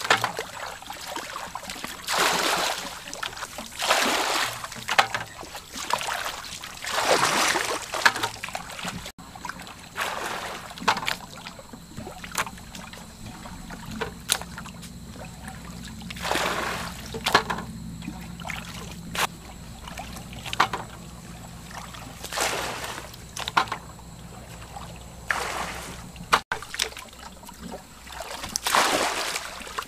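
Shallow muddy water splashing and sloshing as hands grope and scoop through it to catch fish, in irregular splashes every second or two. A faint low hum runs underneath through the middle part.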